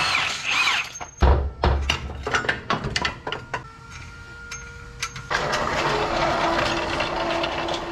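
Milwaukee M18 cordless impact wrench hammering loose a rear suspension bolt in short bursts over the first few seconds. About five seconds in, a steady hissing noise starts and runs on.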